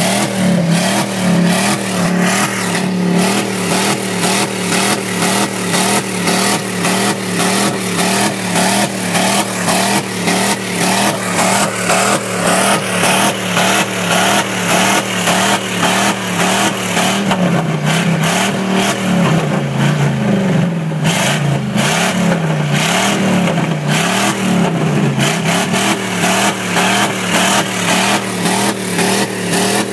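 Chevrolet 350 small-block V8 in a pickup held flat out against its rev limiter: the ignition cut chops the engine note several times a second in a continuous stutter, "waaaadaaadaadaa". Partway through, the engine speed swings down and back up a few times before settling on the limiter again.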